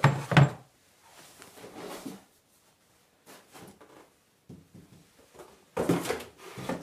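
Cardboard box and Avegant Glyph headset being handled: rustling and scraping as the headset is lifted out of the box's card insert and set down on a table. It is loudest right at the start and again near the end, with fainter rustles in between.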